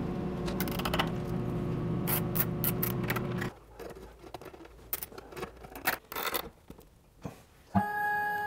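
Scraping, rubbing and clicking as a flexible 2.5-inch vacuum hose is worked into an overhead wooden hanger. A steady low hum runs under it and cuts off about three and a half seconds in. Near the end a held chord of music starts suddenly.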